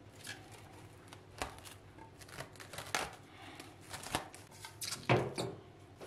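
Cling film being stretched and pressed over a glass baking dish: a string of irregular crinkles and crackles, the loudest about five seconds in.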